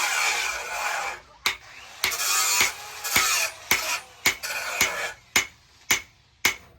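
Hand hammer striking steel on an anvil in steady forging blows, about two a second, each with a short bright metallic ring. For the first second or so there is a continuous harsh scraping noise.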